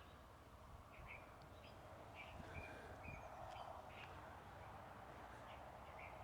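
Near silence with faint, short bird chirps scattered throughout.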